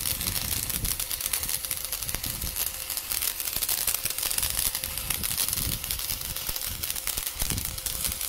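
Electric welding arc crackling and sizzling steadily, a dense spatter of fine pops and clicks.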